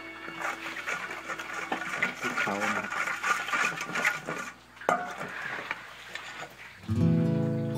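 A utensil clinking and scraping against a metal wok as its contents are stirred, many quick clicks over a few seconds. Music comes in loudly near the end.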